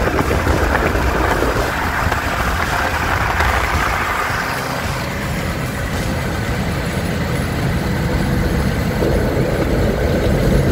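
Car driving at speed on an open road, heard from inside the cabin as a steady rush of road and engine noise.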